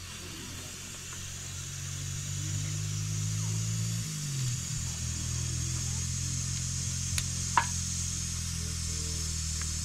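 An engine running steadily, growing louder over the first few seconds; its pitch drops about four seconds in, then holds steady. Two short clicks near the end.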